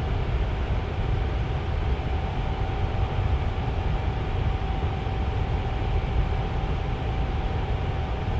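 Electric tower fan running steadily: a low airy rush with a faint steady hum from the motor.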